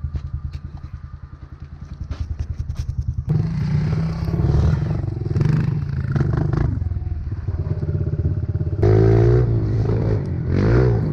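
A small engine idling with an even pulse, then, from about three seconds in, a pit bike's engine running louder under way and revving, its pitch rising and falling several times.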